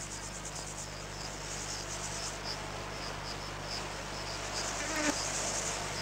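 Grasshopper stridulating: rapid high-pitched buzzy chirps, thick at first and again near the end with separate chirps in between, over the steady low hum and hiss of an old film soundtrack.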